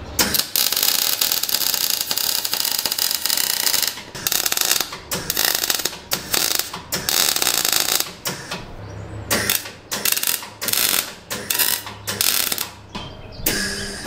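Electric welding, tacking a steel part in place: one continuous weld of about four seconds, then a string of short welding bursts, each under a second, with brief pauses between.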